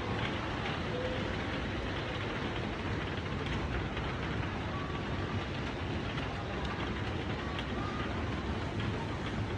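Rain falling hard in a strong wind: a steady rushing noise with a deep rumble, with a few faint short tones now and then above it.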